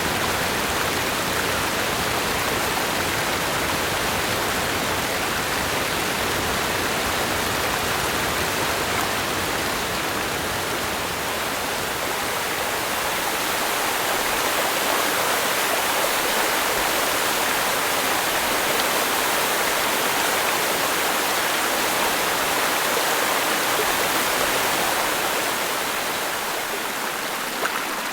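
Rushing water of a temperate rainforest creek tumbling over rocks, a steady even hiss. Its deeper rumble thins near the end.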